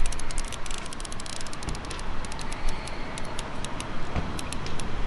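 Thin plastic wrapping being peeled off a pen's packaging tube: a run of small, irregular crackles and clicks over a steady low rumble.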